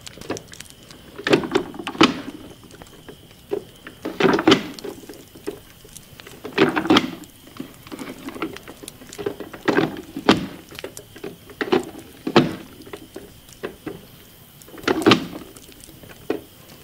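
Hand-operated vegetable dicer cutting potato slices into small cubes: repeated thunks, often in pairs, about every two to three seconds.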